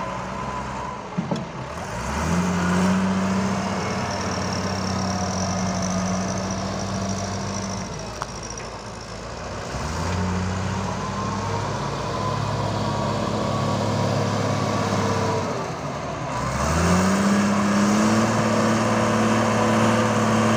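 A motor running in three long spells. Each starts with a rising pitch and then holds a steady hum.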